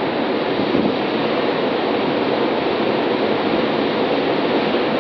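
Floodwater of a river in spate rushing past, a loud, steady, unbroken rush of water.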